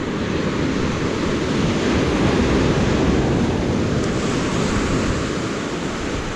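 Surf breaking and washing up the beach, an even rush of noise that swells for about three seconds and then eases off.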